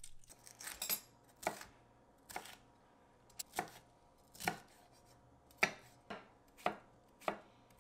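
Chef's knife chopping carrot on a wooden cutting board: a slow, uneven series of sharp knocks, about one or two a second.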